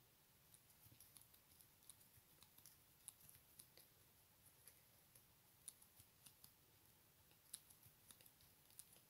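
Faint, irregular small clicks, several a second, from a tatting shuttle and thread being handled as shuttle-tatting stitches are worked, over near silence.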